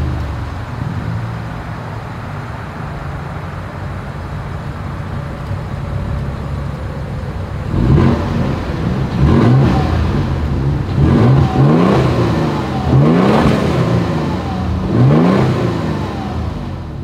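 2023 Toyota Tundra 1794 Edition's 3.4-litre twin-turbo V6 heard at its single exhaust outlet, idling steadily. From about halfway through it is revved in about five throttle blips, each rising and falling in pitch.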